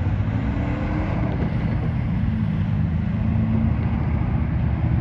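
Diesel locomotive engine running with a steady low drone, mixed with the broad rumble of the passing train.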